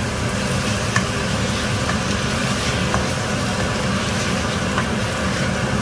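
Stir-fry sizzling in a wok as century eggs and Thai basil in three-cup sauce are tossed with a wooden spatula, with a few light knocks of the spatula against the wok about once a second. A steady low hum runs underneath.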